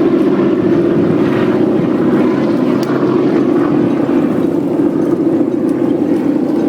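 Propeller aircraft engine droning steadily and loudly.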